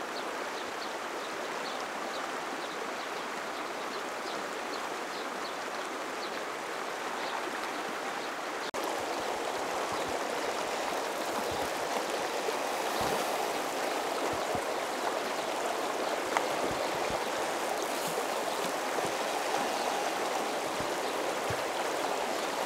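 Shallow river rushing over stones: a steady wash of flowing water that gets a little louder about nine seconds in.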